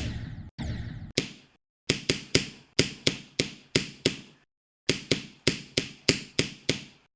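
A run of sharp click sound effects, each a single crisp tap that dies away quickly, cut apart by dead silence. Most come in quick clusters of about three a second. Two longer, rattling clicks come in the first second.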